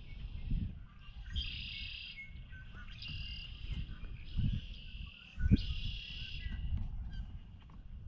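Songbirds singing in a cattail marsh: four short buzzy trilled phrases, one about every second and a half. Under them is a low rumble on the microphone, with two thumps about halfway through.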